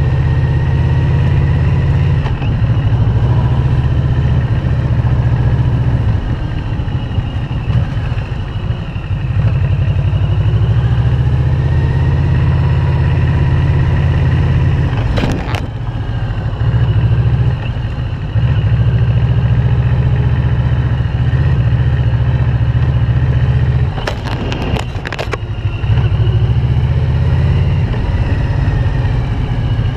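Yamaha VMAX's V4 engine running under a rider cross-country over a rough field track, the engine note swelling and easing every few seconds. Sharp knocks come once about fifteen seconds in and a few times near 24 to 25 seconds.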